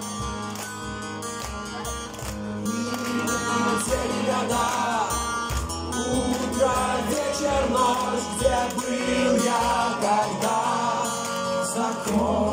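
Acoustic guitar strummed in a steady accompaniment, with a man singing over it from about four seconds in.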